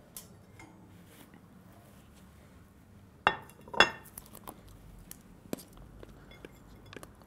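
Dishes handled on a counter: two sharp clinks a little over three seconds in, then a few lighter knocks as salad is tipped from a plastic mixing bowl onto a serving plate.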